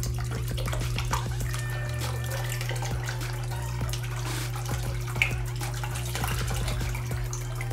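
Water poured from a clear plastic tube splashing onto the cups of a small water wheel and falling into a basin of water, over a steady low hum.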